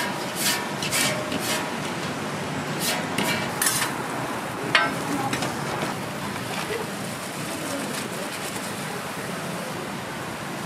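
Oil sizzling steadily on a flat steel griddle where an egg is frying. Over it come sharp metal clanks of utensils and pots: three quick taps in the first couple of seconds, three more around three seconds in, and a louder ringing clank about five seconds in.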